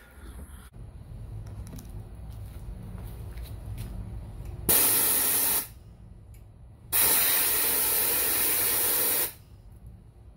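Two sharp blasts of compressed air from an air nozzle, the first about a second long and the second about two seconds, each starting and stopping abruptly. They are blowing out the Sea-Doo J-pipe's water-flow holes, which small rocks had clogged and so made the exhaust overheat.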